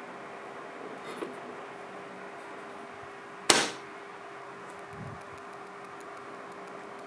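The hinged plastic hood of a 1/10-scale RC Unimog U423 being lowered and snapping shut with one sharp click about halfway through, after a faint tap about a second in. A steady hiss with a faint hum runs underneath.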